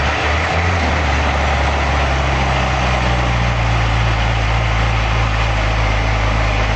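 Old Volvo Viking army truck's diesel engine idling steadily.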